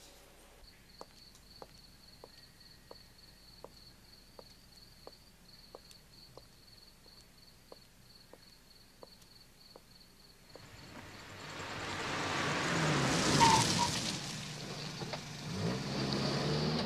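Slow footsteps on a road with a steady high insect chirping; from about ten seconds in a car approaches, growing louder, and pulls up close with its engine running.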